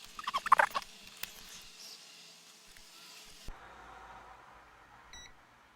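A short, high squeaky sound in the first second, then a small click, then a brief beep from a multimeter in continuity mode near the end: the meter signalling that the small push button closes the circuit.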